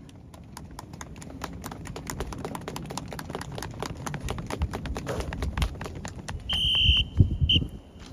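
Many sharp clicks and knocks in quick, irregular succession. About six and a half seconds in, a whistle sounds for about half a second and then once more briefly, with heavy thumps around the second blast.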